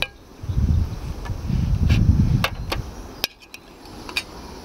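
A wooden spatula knocking and scraping curry out of a frying pan onto a plate, giving a handful of sharp clicks, with two bursts of low rumble in the first half.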